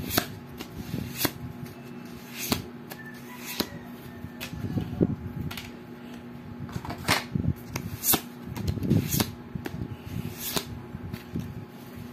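Exploding Kittens playing cards being sorted one by one from a hand-held deck. Each card slides off the top with a crisp snap, roughly once a second, at an uneven pace.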